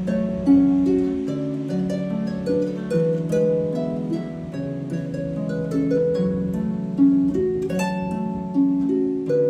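Background music of gently plucked harp notes, several notes overlapping and ringing on.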